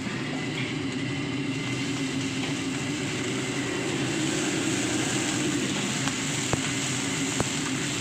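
Broth boiling hard in a wok: a steady bubbling rush, with a few light clicks near the end.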